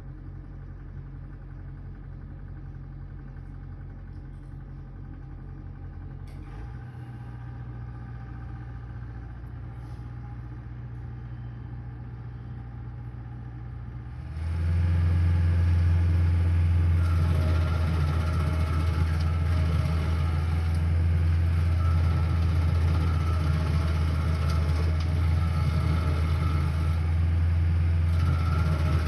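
Stump grinder's engine running steadily, shifting speed about a third of the way in, then stepping up to a much louder, higher-revving run about halfway through and holding there.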